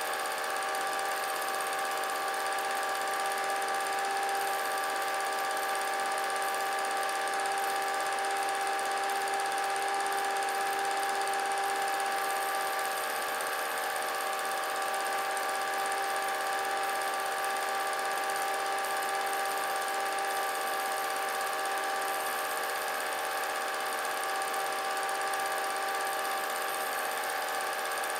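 A small motor running steadily: a constant whirring hum with several held tones over a faint hiss, never changing in pitch or level.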